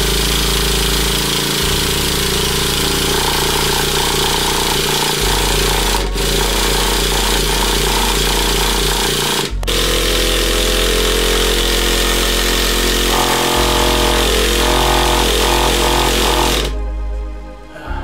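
Loud rock music with heavy distorted guitar over a bass line that changes note every few seconds, cutting off near the end.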